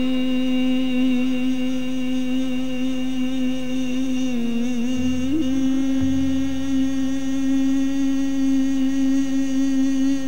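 Qawwali singer holding one long sustained note over a harmonium. The pitch sags briefly near the middle of the note and comes back to the same level.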